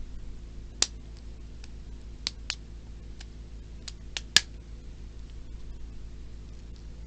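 About six sharp plastic clicks and taps at irregular intervals, the loudest about four and a half seconds in, from handling the parts of a Plarail toy train. A steady low hum runs underneath.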